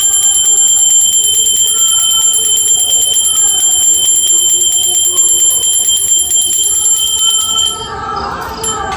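Puja hand bell rung rapidly and without pause for an aarti, a steady high ringing that stops near the end.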